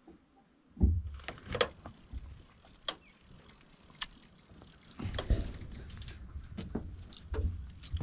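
Wind buffeting the camera's muffled microphone: the audio cuts in suddenly about a second in with a low rumble that swells again about halfway through. A few sharp clicks and knocks sound over it.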